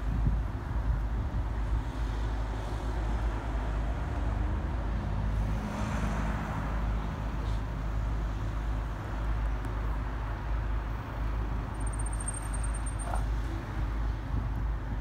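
Steady low rumble of road traffic, swelling briefly about six seconds in.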